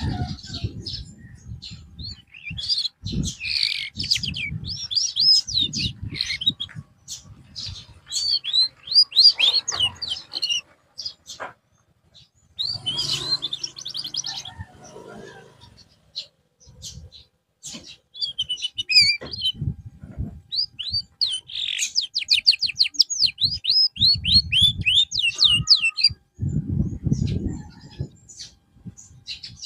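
Domestic canary singing in fast chirping trills and runs of rapidly repeated high notes, broken by short pauses. Low muffled thumps sound between and under the phrases.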